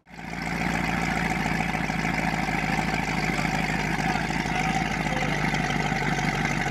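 GM 350 small-block V8 inboard marine engine idling steadily.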